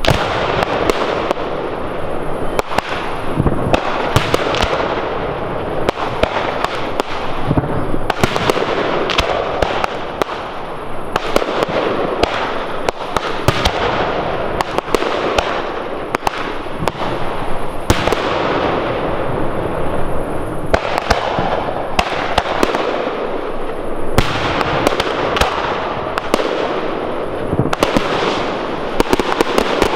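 Large professional fireworks display firing without a break: many sharp bangs in quick succession over a continuous dense crackle.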